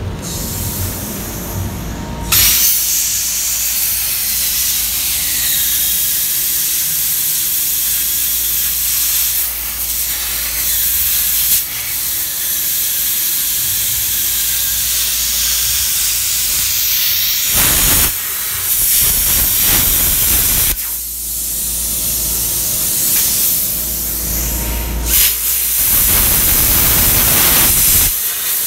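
Plasma cutter cutting a steel beam: a loud, steady hiss that starts a couple of seconds in and breaks off briefly a few times in the second half.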